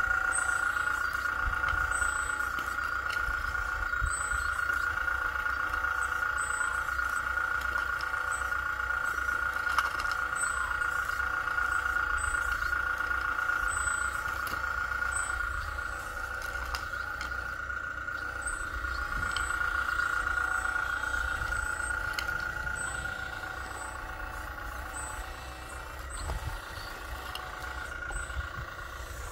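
Radio-controlled scale Kobelco excavator at work, its motor giving a steady high whine that eases off somewhat in the last third.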